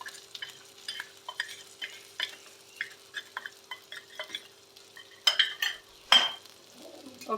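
A utensil stirring and scraping in a pan as roasted flour is mixed into ghee-roasted ginger: short, irregular scrapes, with louder ones about five and six seconds in. A faint steady hum runs underneath and stops near the end.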